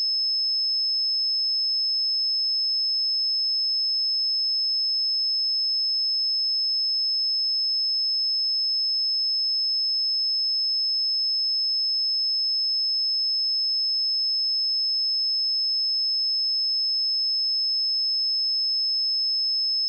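Pure 5208 Hz sine-wave test tone, a single steady high-pitched whistle held unchanging at constant level.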